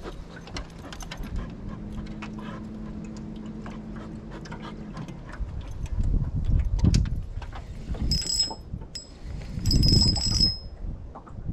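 A spinning reel cranked by hand, with a run of small clicks, a steady low hum for a few seconds early on, heavier handling bumps about six and ten seconds in, and short high squeaks near the end.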